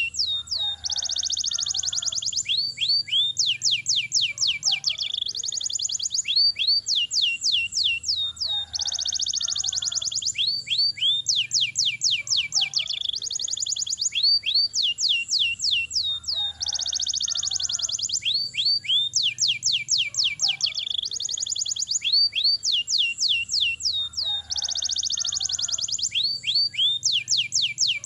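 Domestic canary singing a long song. Runs of quick sweeping high notes alternate with fast rolled trills, and the same pattern comes round about every four seconds.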